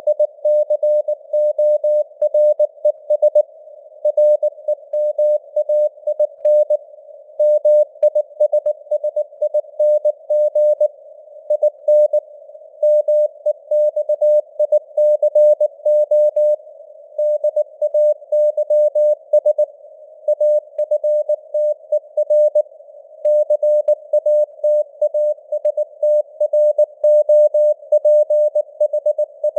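Morse code (CW) at about 19 words per minute: a single steady beep keyed on and off in dots and dashes, with short gaps between words, over a narrow band of simulated radio receiver hiss.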